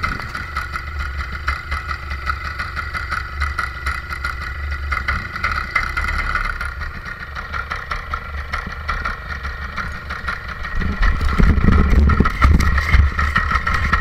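Paramotor engine running steadily behind the pilot, growing louder with a low rumble from about eleven seconds in as the wing is pulled up overhead for takeoff.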